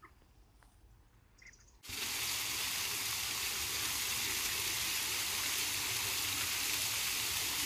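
Fountain jets splashing steadily onto paving, an even hiss of falling water that starts abruptly about two seconds in; before it, only quiet ambience with a few faint clicks.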